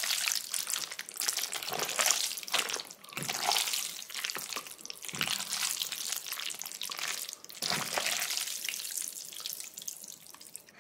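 Wet, sticky squelching and clicking of jajangmyeon noodles being stirred through thick black bean sauce, going on unevenly throughout.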